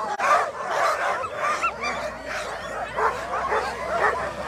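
A team of Alaskan husky sled dogs barking and crying out together, many dogs at once, their calls rising and falling over one another. It is the excited clamour of dogs in harness at the start line, eager to run.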